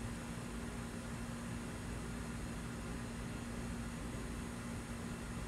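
Steady even hiss with a constant low hum underneath, unchanging throughout.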